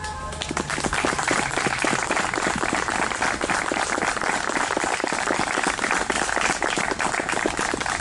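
A small crowd clapping: dense, steady applause that starts about half a second in.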